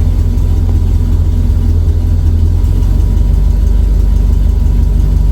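Old GMC farm truck's engine idling steadily with a low, even rumble while the truck sits in neutral.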